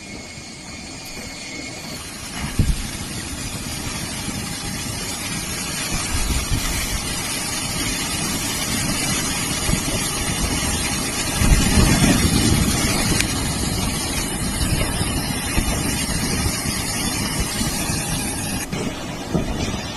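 Storm wind and heavy rain on a phone microphone: a steady noisy rush with low gusts buffeting the mic. It grows louder over the first few seconds.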